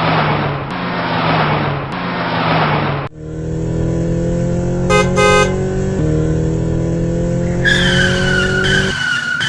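Cartoon car sound effects: an engine hum under a skidding hiss for about three seconds, then an engine slowly revving up, with a short double horn beep about halfway through and a high steady tone coming in near the end.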